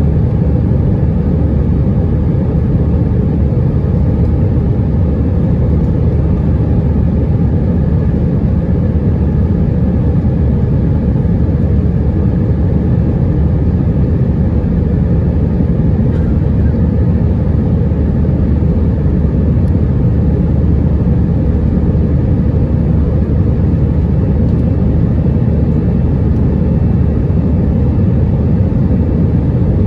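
Steady, deep engine and airflow noise inside the passenger cabin of an Airbus A320-212 during the climb after takeoff. A few faint steady tones sit above it from its CFM56 turbofan engines.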